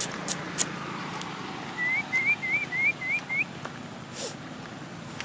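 A run of six short rising whistled notes, evenly spaced at about three a second. A few sharp clicks come in the first second.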